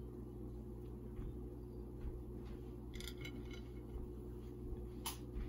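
Faint clicks and light taps of small candies and a plastic candy-eye tray being handled, the sharpest click about five seconds in, over a steady low hum.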